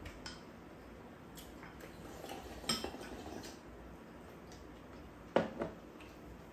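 Chopsticks and bowls clinking during a meal: faint scattered taps of utensils on ceramic, with two sharper, louder clinks about three seconds apart.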